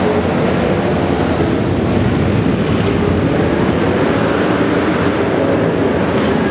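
Several flat-track racing motorcycles running at race pace around a dirt oval, a loud, steady blend of engine noise with no single bike standing out.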